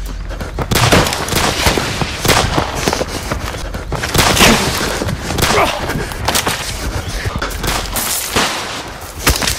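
Gunshot sound effects in an edited chase soundtrack: a string of sharp shots and impacts at irregular intervals. They start about a second in and keep coming, layered over the rush of the chase.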